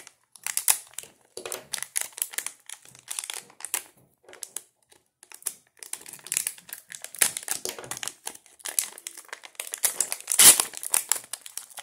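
Plastic anti-static component bags crinkling as hands handle them, in irregular rustles with the loudest crinkle about ten and a half seconds in.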